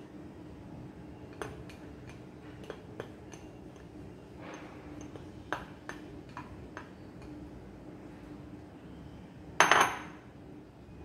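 Ceramic bowl clinking lightly against an aluminium foil tray, a few scattered taps, as chopped tomato sauce is tipped out of it, with a soft slide of sauce in the middle. About ten seconds in comes one much louder clatter as the ceramic bowl is set down on the countertop.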